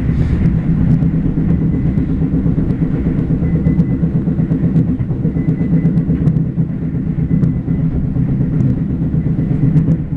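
JR Hokkaido train running, heard inside the car: a steady low rumble with a rapid clattering knock from the bogie, the abnormal gotogoto noise that the uploader puts down to the bogie. A faint steady whine sits above it.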